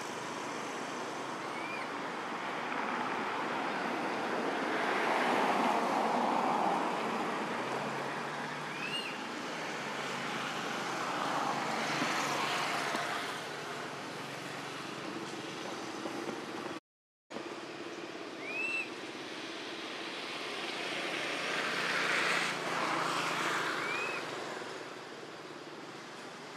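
Outdoor rushing noise that swells and fades several times, with four short, high chirps spread through it. The sound cuts out for a moment about two-thirds of the way through.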